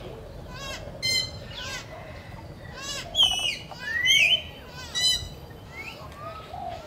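Several birds calling: repeated short arching calls, with the loudest calls, one of them a long rising call, from about three to four and a half seconds in.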